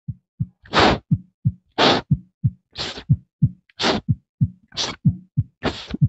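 Beatboxed imitation of a heart murmur made with the mouth into a microphone: short low thumps for the lub-dub heart sounds, each cycle carrying a breathy whoosh for the murmur. It repeats in an even rhythm about once a second, six times.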